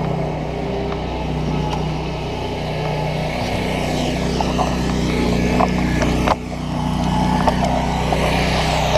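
Handheld two-stroke gas trimmer engine running steadily, with a brief drop in level about six seconds in and a few small ticks.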